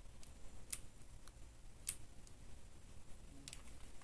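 Faint scattered clicks from a small hot glue gun being worked and handled, the loudest about two seconds in.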